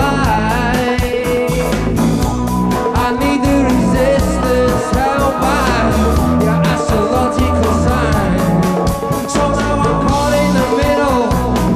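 Live rock band playing an instrumental passage of the song, with a steady drum beat, bass and long held melody lines.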